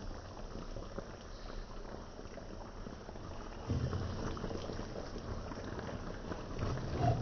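Beef and broccoli in a 7-Up sauce simmering in a pan, bubbling and popping steadily as it reduces to thicken. There are a couple of dull low bumps, about four seconds in and near the end.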